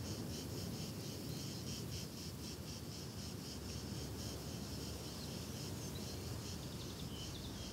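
Crickets chirping in rapid, regular pulses over a low steady ambient rumble.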